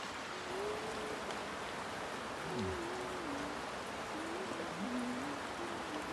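Steady, even hiss of rain pattering on the plastic roof of a fig greenhouse, with faint low voice sounds now and then.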